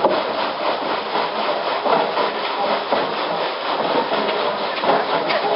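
Sawmill saw cutting through timber: a steady, rasping noise with small irregular clatters.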